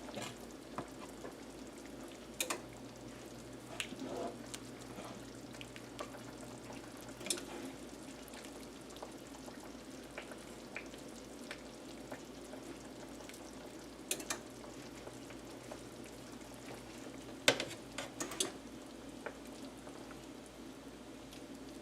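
Onion gravy with Salisbury steak patties simmering gently in a pan, a soft steady sizzle as the cornstarch-thickened gravy cooks down. A few sharp clicks and taps now and then, the loudest about three-quarters of the way through.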